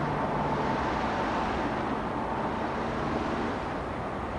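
Street traffic: cars and vans running past, a steady hum of engines and tyres.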